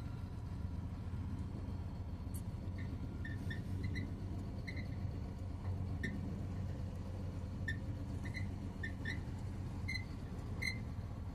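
Scania truck's diesel engine running steadily at low revs, heard from inside the cab while the truck rolls slowly over gravel. Short high chirps come about once a second at uneven spacing.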